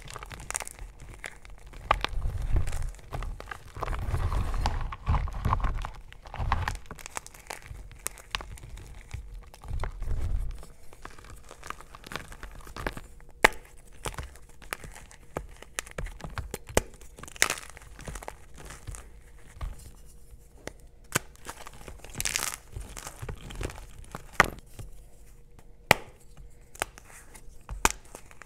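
Hands crushing and crumbling blocks of gym chalk in a bowl. For about the first ten seconds there is dense, steady crunching and powdery rustling. After that it thins out to sparser crunches broken by many sharp, short cracks.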